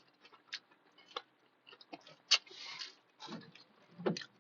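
Close-miked chewing of breakfast food, with wet mouth clicks and smacks scattered throughout and one louder smack about halfway.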